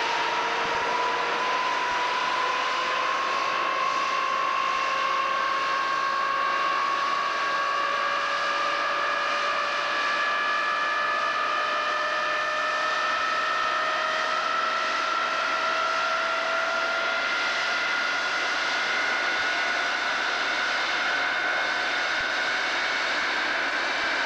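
Twin turbojet engines of a Tupolev Tu-22 bomber running as a steady roar, with a whine that climbs slowly and evenly in pitch.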